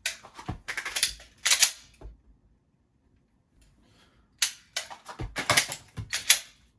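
Glock 41 pistol handled in a dry-fire reload: two quick runs of sharp metallic clicks and clacks as a magazine is drawn from a holster, seated into the grip and the slide racked, with a few dull thuds. The rack is not a proper one.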